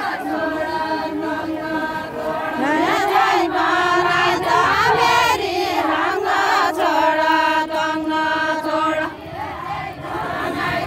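A group of women singing a Deuda folk song together in unison, in long held notes, with a brief break between phrases about nine seconds in.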